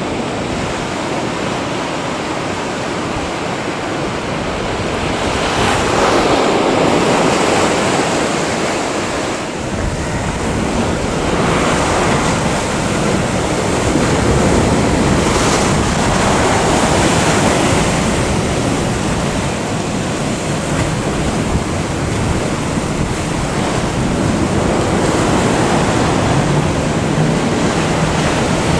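Rough sea: waves breaking and churning, a steady rush of surf that swells louder several times.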